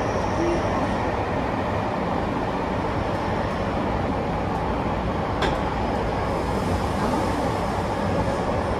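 Running noise of a Tobu 50000-series electric train heard from inside the car in a subway tunnel: a steady rumble of wheels and running gear. There is a single sharp click about five and a half seconds in.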